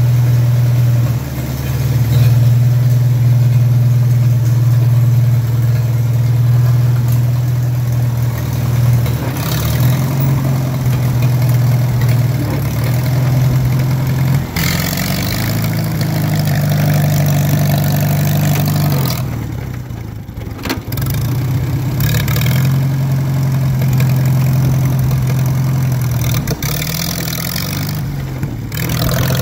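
1944 Farmall A's four-cylinder gasoline engine running as the tractor is driven. The engine note is mostly steady, rises in speed about halfway through, drops briefly in level a few seconds later, then settles back to a steady run.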